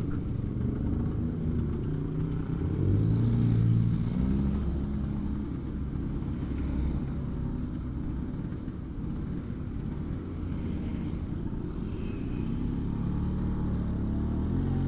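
1985 Vespa P150S scooter's two-stroke single-cylinder engine running as it rides slowly through traffic, heard from the rider's helmet. It picks up in pitch and loudness a few seconds in for about two seconds, then settles to a steady run.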